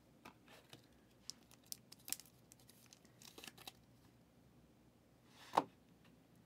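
Faint crinkling and rustling of plastic as a trading card is slid into a clear plastic sleeve and toploader, with scattered light clicks, then one louder brief swish about five and a half seconds in.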